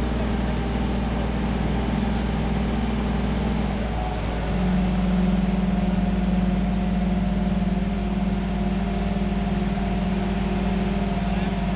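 Engine of the crane hoisting the sailboat on a single cable, running steadily. Its pitch steps up about four and a half seconds in and holds there.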